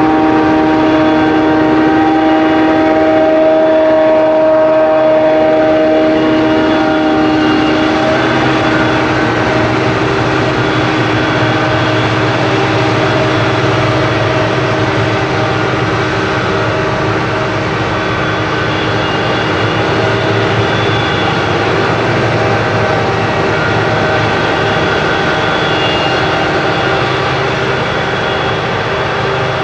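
Corn silage harvesting machinery running steadily: a forage harvester and tractors, a loud drone with several steady whining tones over it. A deeper drone joins about eight seconds in.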